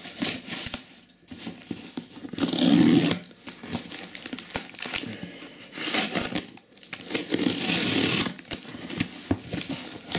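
Folding pocket knife slicing through packing tape and cardboard on a shipping box, with rasping cuts, crinkling tape and small clicks. The longest, loudest cuts come about two and a half seconds in and again from about six to eight and a half seconds.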